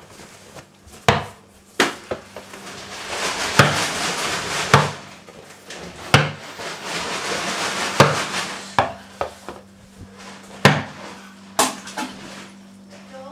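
Household sounds: a run of sharp knocks and clatters, about nine in all, with a steady rushing noise underneath from about two to eight seconds in.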